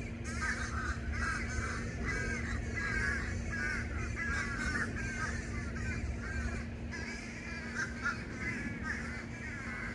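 A flock of boat-tailed grackles calling together: many short rising-and-falling notes overlap in a busy chatter that thins out after about six seconds, over a steady low hum.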